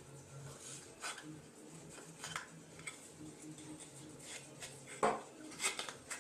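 Hands handling small parts on a workbench: scattered light clicks, taps and rubbing, with the loudest tap about five seconds in.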